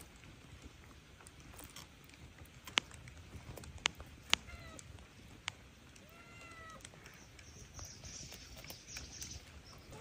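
A few sharp clicks, then two short, soft cat meows about four and a half and six seconds in.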